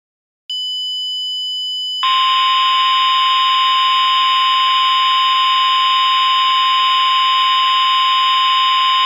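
Electronic alert tones of a mock Emergency Alert System warning. After a brief silence a steady high tone comes in. About two seconds in, a louder, harsh, noisy alarm tone joins it and holds steady.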